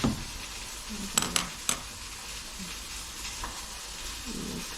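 Unboxing of a DJI Osmo Pocket 3 camera: three sharp clicks about a second in, with some quiet handling, over a steady soft hiss.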